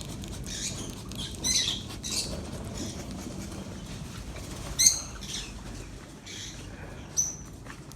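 Small aviary birds chirping: scattered short, high chirps, with one louder call about five seconds in.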